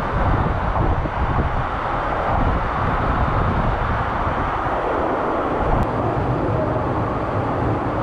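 A waterfall pouring right over the camera: a loud, steady rush of falling water with a heavy low rumble.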